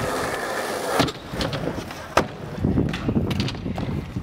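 Stunt scooter wheels rolling over the skatepark surface, with sharp clacks of the scooter's deck and wheels striking and landing, the loudest about two seconds in, followed by a short rumble and a few small clicks.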